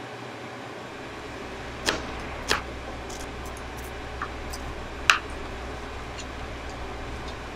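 A few sharp clicks and knocks of steel kitchen utensils, the loudest about five seconds in, over a steady low hum that sets in about a second in.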